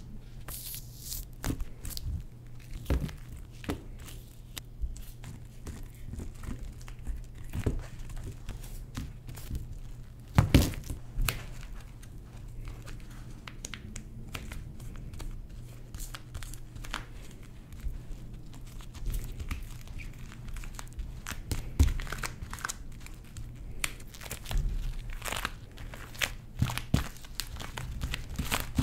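Gloved hands working hot poured sugar on a silicone baking mat: irregular sticky crackling, peeling and crinkling as the cooling sugar is lifted off the mat and folded, with a few sharper clicks. A low steady hum runs underneath.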